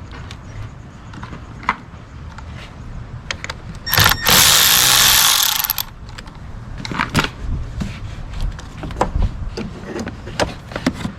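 Hand-tool work on a car battery terminal: scattered metallic clicks and knocks of a ratchet and socket, broken about four seconds in by a loud, steady rushing noise that lasts just under two seconds and stops abruptly.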